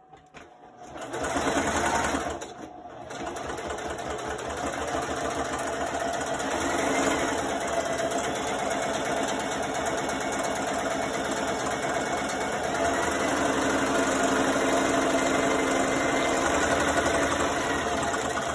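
Electric sewing machine stitching through a feed sack. It starts about a second in, stops briefly, then runs steadily.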